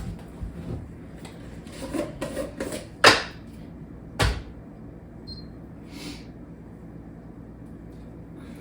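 Kitchen cupboard being opened and closed, with items handled inside: a few light knocks about two seconds in, then a sharp bang about three seconds in and a second, smaller one about a second later.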